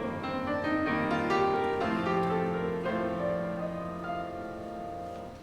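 Piano playing a short instrumental interlude between choir verses, with held chords that grow quieter toward the end.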